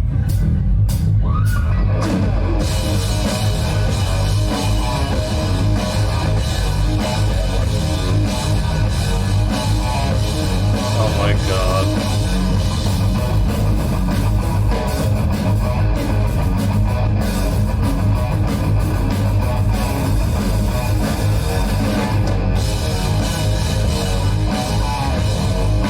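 A rock band playing a song live, with electric guitar and a drum kit.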